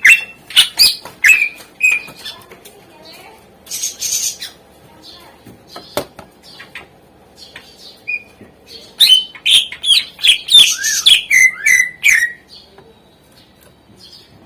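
Greater green leafbird (cucak ijo) singing: a varied string of sharp chirps and whistled notes, with a harsh rasping note about four seconds in. After a sparse pause it breaks into a rapid flurry of calls with sliding notes, and falls quiet near the end.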